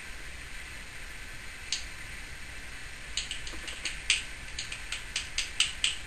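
Timneh African grey parrot making sharp clicking sounds: one click about two seconds in, then a quick, irregular run of a dozen or so clicks over the last three seconds.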